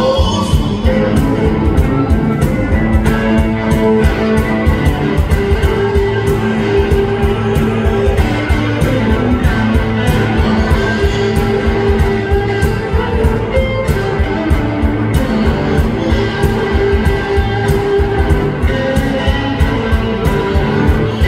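A blues band playing live: electric guitars over a steady beat.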